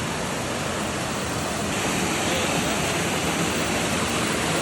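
Steady rush of a river waterfall cascading over rocks, growing a little louder about two seconds in.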